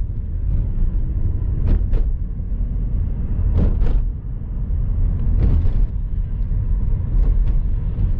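Car driving along a road, heard from inside the cabin: a steady low rumble of road and engine noise, with pairs of brief knocks about every two seconds.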